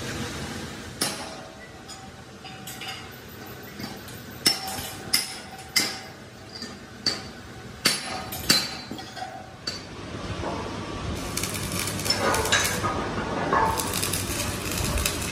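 Steel being struck with a hammer: about a dozen sharp, ringing metal clanks at irregular intervals, then a denser, continuous metallic clatter in the last few seconds.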